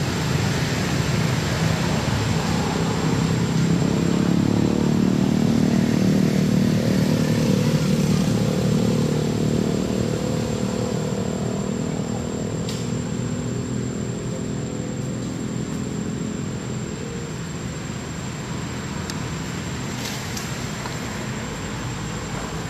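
A motor vehicle's engine running along with road noise. The engine hum swells to its loudest about a third of the way in, then slowly fades.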